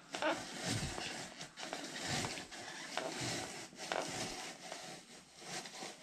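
Hand-cranked apple peeler-corer-slicer turning: the blade scraping the peel off a fresh apple as the crank and screw shaft advance it, an uneven rough scraping with scattered small clicks.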